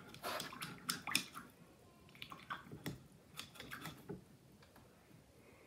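Paintbrush swished and tapped in a plastic cup of rinse water: a run of small splashes and clicks for about four seconds, then it stops.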